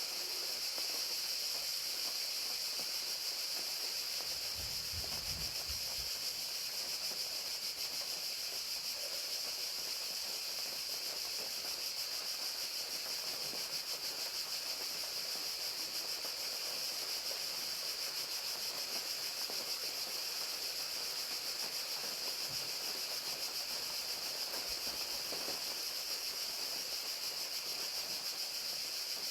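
Crickets trilling steadily in a continuous high band, over the even hiss of falling rain.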